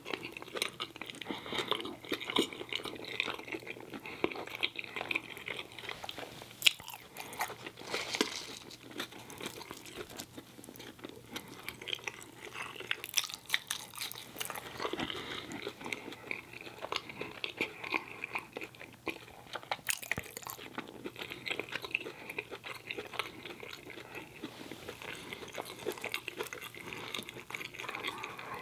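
Close-miked chewing and biting of a man eating french fries, a continuous run of wet mouth smacks and short clicks with a few sharper bites scattered through.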